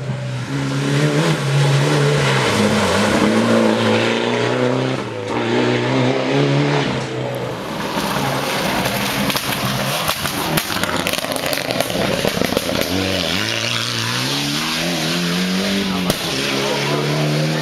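Mitsubishi Lancer Evolution rally cars' turbocharged four-cylinder engines revving hard on a gravel stage. The pitch steps up and down through gear changes as the first car passes. In the second half a second car is heard with sharp cracks and gravel noise, its engine pitch rising as it accelerates near the end.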